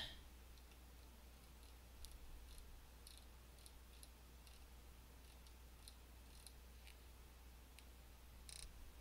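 Near silence with faint, scattered clicks from a computer mouse, typical of its scroll wheel being turned, over a low steady hum.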